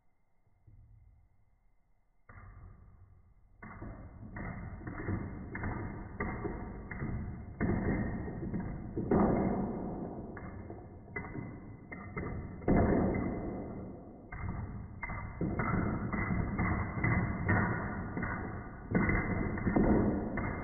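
Metal padlocks knocking and clattering in a long irregular run of thuds and clacks, starting about two seconds in and getting louder, with a few sharp heavier knocks.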